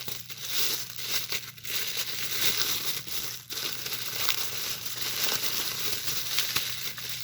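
Packaging crinkling and rustling as it is handled and unwrapped: a continuous crackly rustle.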